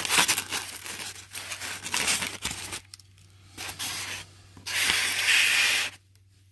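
Polystyrene foam packing blocks being pulled apart and shifted against each other and the cardboard box: scratchy scraping and rustling with small clicks, then a louder steady scrape about five seconds in.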